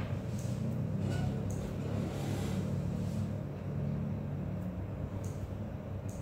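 Steady low rumble of room background noise, with a few faint light ticks.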